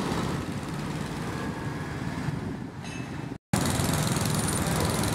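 Small motorcycle engine running as it tows a heavily loaded cart through street traffic. The sound drops out for an instant about three and a half seconds in and comes back louder.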